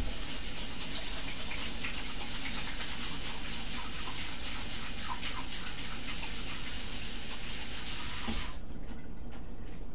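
Kitchen faucet running into a stainless steel sink while hands are washed under it after handling raw pork; the water is shut off about eight and a half seconds in.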